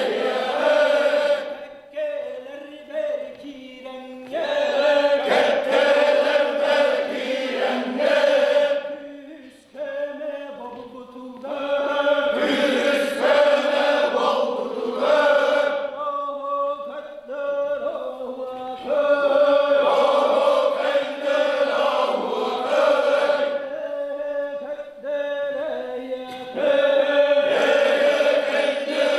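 Yakut osuokhai singing: a lead singer chants a line alone, and a group of men answers it in unison, call and response. The cycle repeats about every seven seconds.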